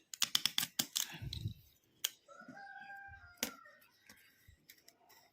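A run of small sharp clicks and scrapes of a calculator's battery contact being worked loose from its plastic housing, with one more click later. About two seconds in, a rooster crows faintly in the background, one drawn-out call.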